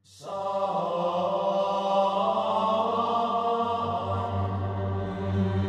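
Background music of low male voices in monastic chant, held steady over a low drone, rising quickly out of silence at the start; the drone swells about four seconds in.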